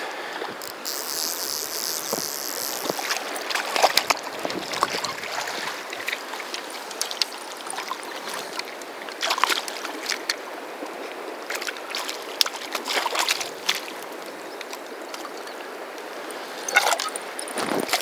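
Steady rush of river water, broken by repeated sudden splashes and sloshing as a hooked trout is handled in a landing net at the water's surface.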